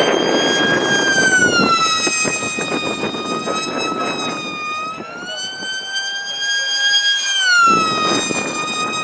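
High-pitched propeller-motor whine of a radio-controlled flying wing in flight, its pitch dropping, rising again and dropping as the speed changes, ending in a falling glide. Wind noise on the microphone in the first couple of seconds.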